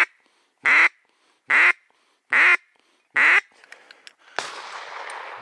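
Duck quacking: five loud quacks evenly spaced less than a second apart. About four seconds in, a sudden rushing noise comes in and keeps going.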